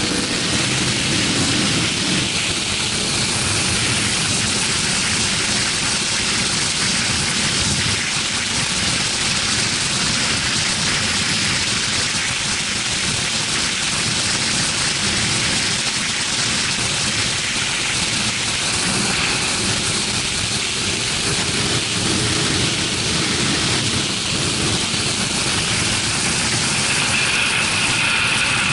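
Wind rushing over the action camera's microphone on a Yamaha R6 sportbike at motorway speed: a steady hiss, with the bike's inline-four engine low underneath.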